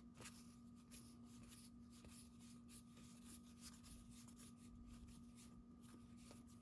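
Near silence with faint rustling of trading cards being slid and flipped by hand, over a steady low hum.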